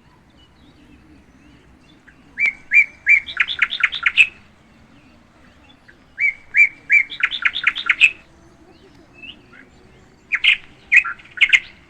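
Songbird singing: two phrases, each three separate notes followed by a quick run of about seven notes, then a shorter, broken phrase near the end.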